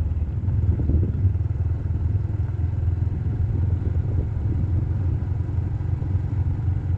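Steady low rumble of a vehicle's engine and tyres at road speed, heard from on board while driving along a paved road.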